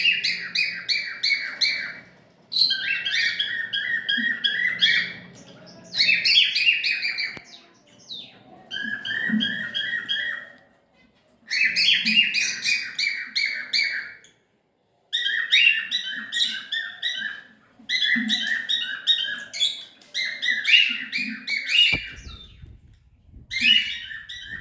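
Pet cockatiel chattering: about eight bursts of rapid, buzzy chirping, each one to three seconds long, with short pauses between them.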